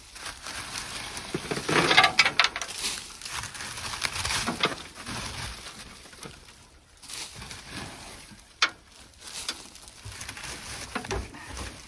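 Dry rat's-nest material in a car trunk rustling and crackling as it is pulled out and cleared away, with scattered clicks and one sharp knock about two-thirds through.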